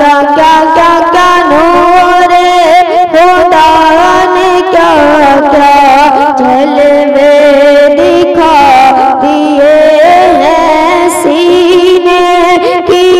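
A young boy singing an Urdu devotional kalam (a naat) through a microphone, without pause: long held notes that bend and turn in pitch.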